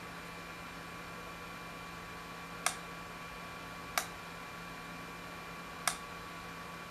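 Motorised model display turntable running, a faint steady hum with a thin whine over it. Three sharp clicks come in the middle, spaced a second or two apart.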